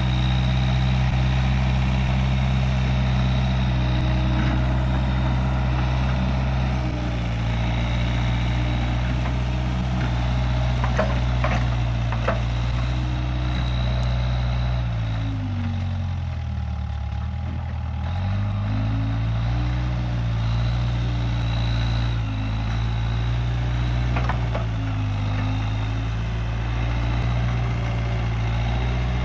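Case 580G backhoe loader's diesel engine running steadily. About halfway through, the engine speed sags and then climbs back up within a few seconds. Shortly before that come a few sharp metallic clanks.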